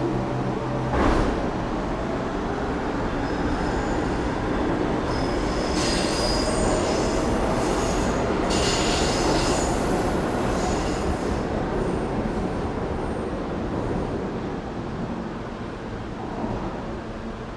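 New York subway train running on the rails with a steady rumble, a sharp clack about a second in, and high-pitched wheel squeal for several seconds in the middle before the noise slowly fades.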